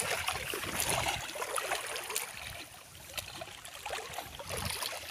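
Water sloshing and splashing irregularly as people wade through a shallow river.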